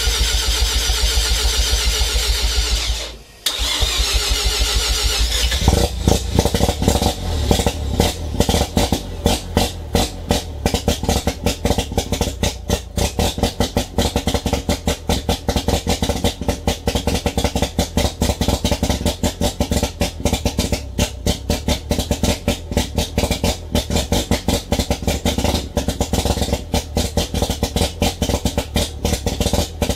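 Turbocharged 13B rotary engine of a 1988 Mazda RX-7 FC3S cranking on the starter, with a short break about three seconds in. Around six seconds it catches and runs roughly and unevenly, with no exhaust fitted.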